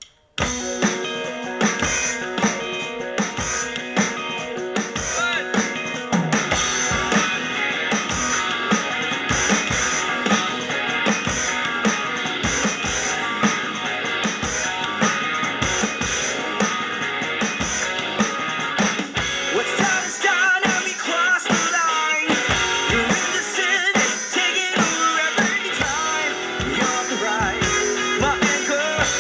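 Rock song with electric guitars and a drum part played along on a tabletop electronic percussion pad, kicking in suddenly about half a second in and running on at a steady driving beat.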